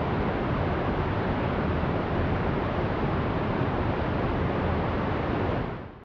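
Mountain stream rushing over rocks in a small cascade, a steady, even rush of water that fades out near the end.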